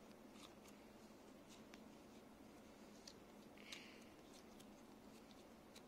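Near silence with a few faint clicks and one soft scratch a little past the middle, from fingers pressing Play-Doh into a plastic Play-Doh lid.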